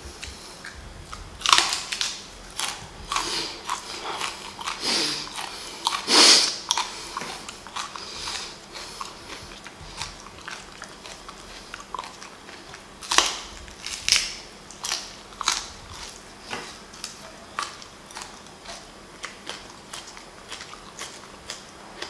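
A person biting into and chewing raw green onions (scallions), with crisp, irregular crunches that are loudest around two, six and thirteen to fifteen seconds in, then thin out to softer chewing and mouth sounds.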